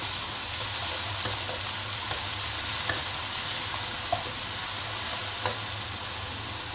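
Sauce-coated chicken, onion and chilies sizzling in a hot non-stick wok while a spatula stirs them, with a few light scrapes of the spatula against the pan.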